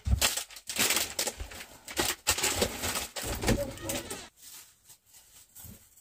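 Rustling and knocking of groceries being handled, a rapid, irregular crackling clatter that fades to faint scattered sounds for the last two seconds.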